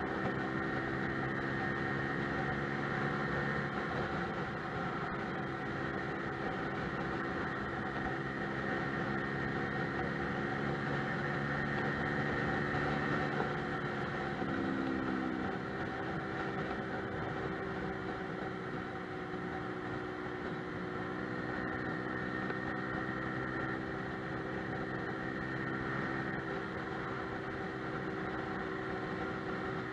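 Lexmoto Milano scooter engine running steadily at cruising speed, heard from a camera mounted on the bike, over a steady rush of wind and road noise; the engine note shifts briefly about halfway through.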